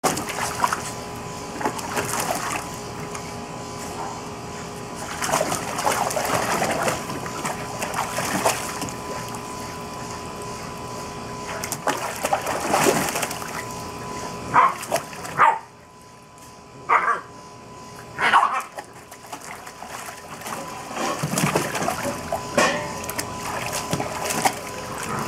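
A Pit Bull mix puppy splashing in a shallow plastic kiddie pool, pawing and stomping at the water in irregular splashes.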